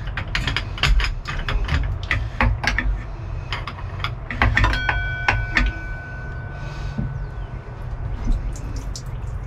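Ratchet or breaker-bar clicking as the crankshaft of a Mercruiser 4.3 V6 marine engine, freshly freed from seizure, is turned slowly by hand through a crank rotation adapter. The clicks come irregularly and thickly in the first five seconds and thin out after. About five seconds in, a steady high tone holds for about a second and a half.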